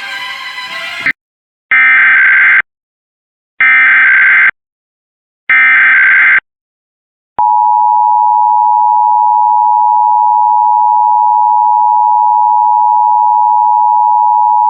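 Emergency Alert System SAME header: three roughly one-second bursts of screeching digital data, opening a required monthly test. About seven seconds in, the EAS attention signal starts, a steady two-tone hum (853 and 960 Hz) that holds for about eight seconds. A second of other broadcast audio cuts off just before the first burst.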